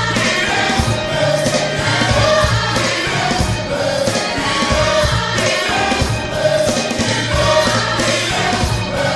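Gospel choir singing worship music over a band, with a steady beat and sustained bass.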